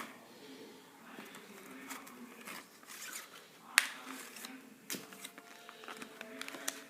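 Folding knife being handled, with a few sharp clicks and light rustling; the loudest click comes a little under four seconds in, another about a second later.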